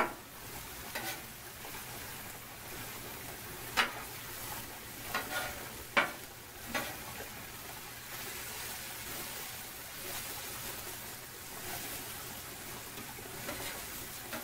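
Eggs, sausage and diced peppers and onions sizzling on a hot steel flat-top griddle, a steady hiss. A metal spatula scrapes and taps on the cooktop several times as the food is pushed and turned, sharpest at the start and about six seconds in.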